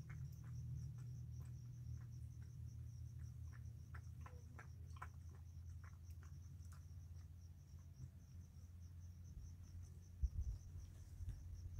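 Crickets chirping, a high, evenly pulsing trill that never stops, over a low steady hum. Scattered light clicks fall through the first half or so.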